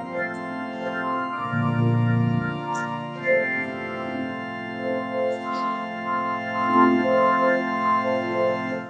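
Organ music: sustained chords with a slow melody moving over them, stopping abruptly at the end.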